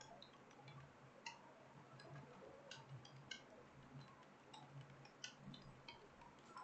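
Faint, irregular keystrokes on a computer keyboard, a few clicks a second, as someone types a passage.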